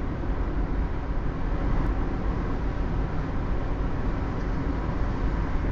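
Steady rumble of a vehicle on the move, with road and wind noise.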